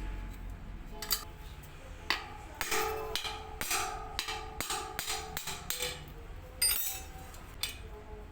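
A run of a dozen or so hammer knocks on a metal part, irregularly spaced about two to three a second, some leaving a brief metallic ring, over faint background music.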